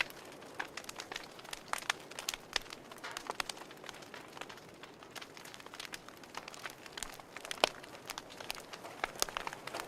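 Wood fire crackling in a fireplace: irregular sharp pops and snaps over a soft steady hiss, with one louder pop about seven and a half seconds in.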